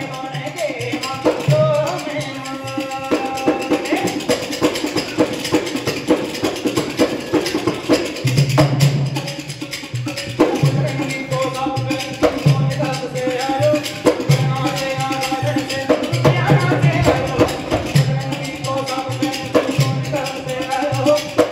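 Rajasthani folk music for a kathputli puppet show: a wavering melody over a low drum beat, with fast rattling percussion.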